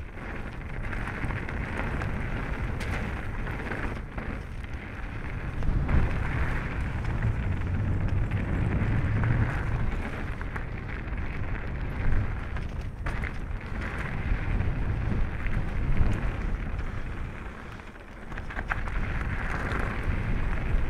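Mountain bike tyres rolling and crunching over a gravel singletrack, with wind buffeting the camera microphone and a few louder knocks from the bike over bumps.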